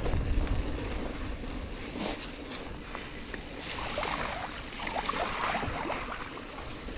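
Wind rushing over the microphone and the rumble of gravel-bike tyres rolling along a track while riding.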